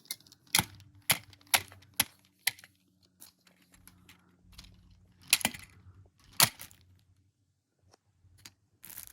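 Hard plastic Lego pieces knocking and clacking together: five sharp clacks about half a second apart, then two louder knocks a few seconds later.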